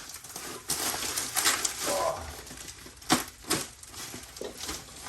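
Rustling of packaging and clicking of exhaust parts being handled while the new exhaust is unboxed, with two sharp knocks a little over three seconds in.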